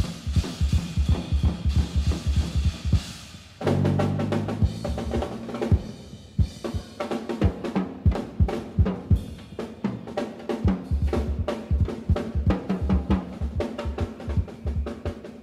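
Big band jazz music driven by a drum kit, with steady snare and bass drum strokes. About four seconds in, sustained low notes come in under the drums.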